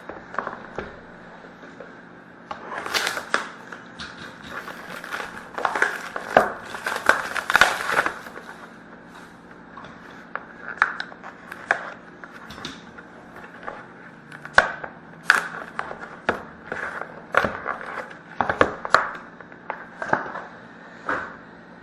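Packaging of a sealed box of hockey cards being torn and crinkled open: irregular crackling rips and scrapes, densest a few seconds in.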